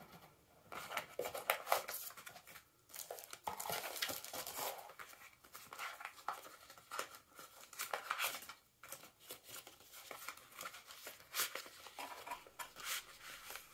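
Thin plastic packaging crinkling and rustling in irregular bursts as bagged items are handled and lifted out of a cardboard box.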